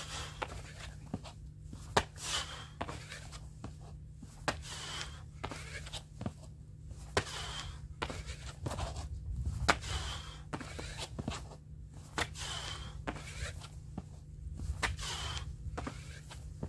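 A person doing burpees on concrete: hands and trainers slap and scuff on the ground with each squat-thrust and jump landing. The sharp slaps and swishes come in a repeating cycle about every two and a half seconds.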